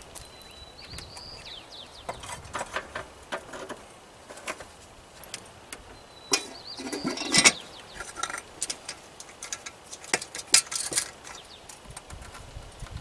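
Scattered clicks, taps and knocks of a 1993 Chevy K3500's air cleaner housing being handled and seated onto the throttle body by hand, the loudest knocks about halfway through and near the end. Two brief high squeaks or chirps sound near the start and about halfway through.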